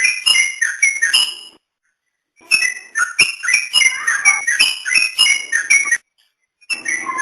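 Yellow-vented bulbul (trucukan) singing: quick runs of bright chirping notes, several a second, which break off abruptly twice into silence.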